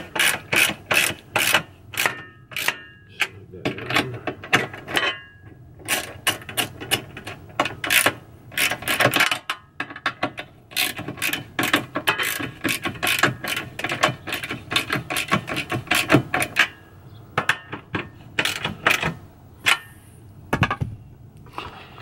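Ratchet wrench clicking in quick, irregular runs with short pauses as nuts are run down onto the mounting bolts of a steel fridge slide bracket. There is a dull thump near the end.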